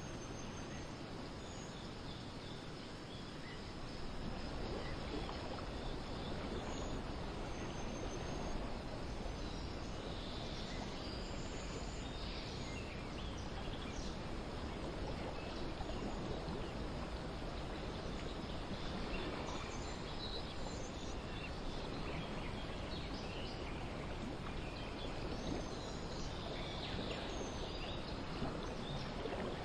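Outdoor garden ambience: a steady, even rushing noise bed with scattered short, high bird chirps over it. It grows slightly louder about four seconds in.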